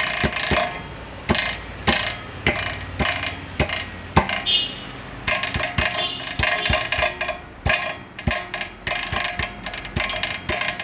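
Repeated knocks on a Royal Enfield Thunderbird X's fuel tank, roughly two a second, each setting off a brief bell-like metallic 'tan tan' ringing inside. The ringing comes from something loose inside the tank, the same noise the bike makes when it drops into a pothole.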